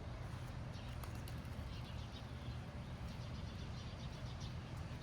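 Outdoor background: a steady low rumble with faint, scattered small clicks and ticks.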